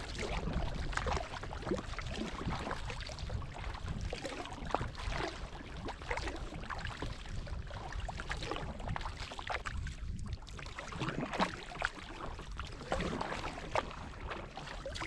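Kayak paddle strokes, the blades splashing and dripping in the water again and again, over a steady low rumble.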